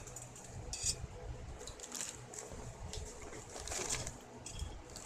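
Tableware being handled: a scattered series of light clinks and clicks, some with a short bright ring, over a low rumble.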